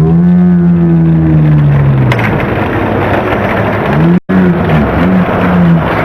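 Racing car engine revving, dubbed over the toy race: one long rev that rises and then slowly falls away. After a brief cut to silence it becomes a run of quick repeated revs.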